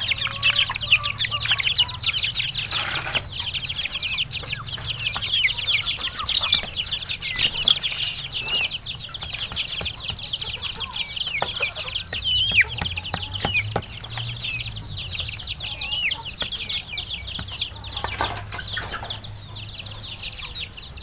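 A constant chorus of high, rapid chick peeping and chirping from many birds, with scattered sharp taps and knocks from a garlic clove being crushed.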